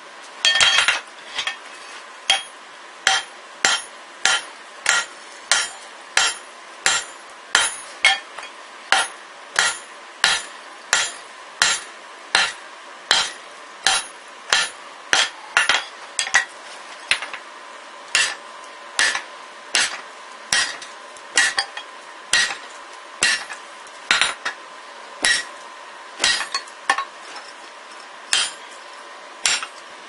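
Hand hammer striking a steel punch held in red-hot steel on an anvil, punching the eye of a cross peen hammer head: a steady run of sharp metallic blows, about two a second, with a few short pauses.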